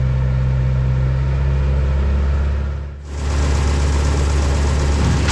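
An engine idling steadily. About three seconds in it gives way to a wood chipper running, a coarser clattering sound.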